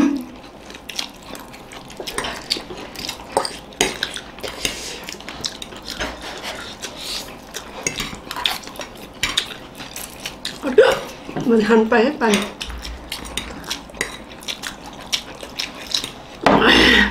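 Metal forks clinking and scraping on ceramic plates in many quick, irregular clicks as several people eat noodles, with brief bits of voice about eleven seconds in and again near the end.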